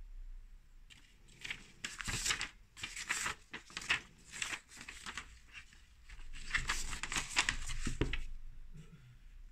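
Thin paper and card wrapping of a chocolate bar crinkling and rustling as it is handled, in two spells: from about a second in to the middle, and again from about six to eight seconds in.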